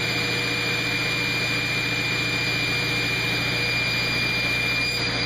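Table saw and its dust collection running steadily between crosscuts, the blade spinning free: a steady hum with a high whine over a rushing noise.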